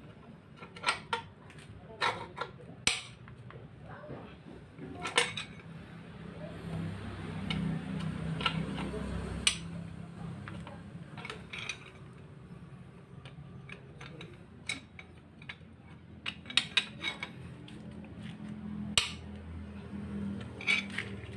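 A long steel rod worked inside a manual transmission's aluminium case during disassembly, making irregular sharp metallic clinks and taps against the shift rails and gears, with a quick run of clinks near the end.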